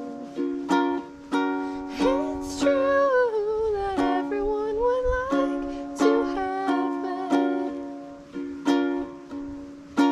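Background music: strummed ukulele chords, with a wavering sung or held melody line over them from about two and a half to five and a half seconds in.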